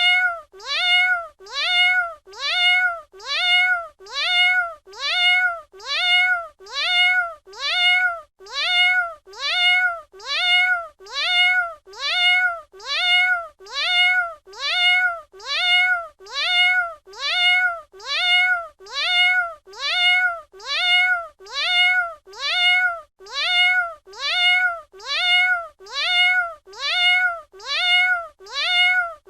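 Domestic cat meowing over and over, about once a second, each meow the same short call rising and then falling in pitch, as if one meow is repeated as a loop.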